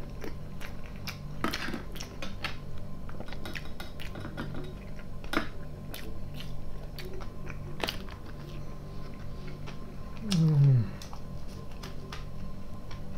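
Close-miked chewing and mouth sounds of a person eating salad from a fork, with a few sharp clicks scattered through and a short falling "mmm" from the eater about ten seconds in.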